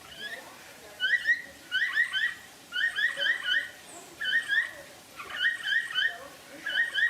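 An animal giving short, high chirping calls in quick clusters of two to four, about once a second, over a steady background hiss.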